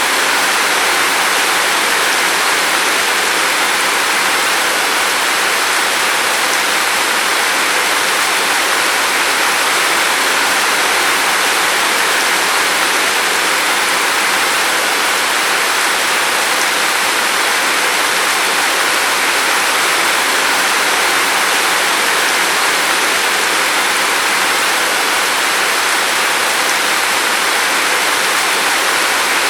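Steady rain falling, a dense even hiss with no single drops or thunder standing out.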